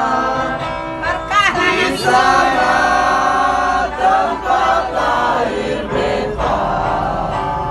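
A crowd of people singing together in unison, with long held notes.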